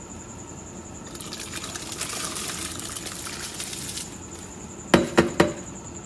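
Soaked rice sliding out of a plastic bowl into a pot of hot water, a splashing hiss for about three seconds, then three quick knocks as the bowl is tapped against the aluminium pot.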